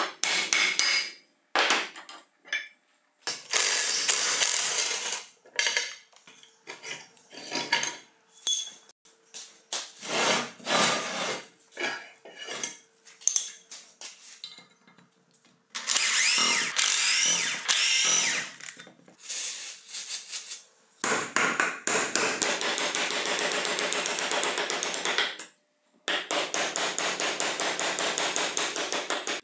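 Tool work on a rusty chisel mortiser's metal parts: short metal knocks, taps and scrapes, then longer stretches of a cordless right-angle drill running as screws are driven out.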